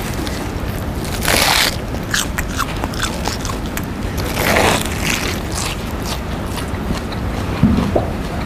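Loud, wet crunching bites into a raw head of lettuce, with two big crunches about a second and four and a half seconds in, and smaller crackling chews between them.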